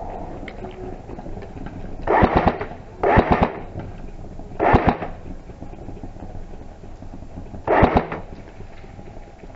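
Airsoft rifles firing four short bursts of rapid automatic fire, each a quick string of sharp cracks, the last about eight seconds in.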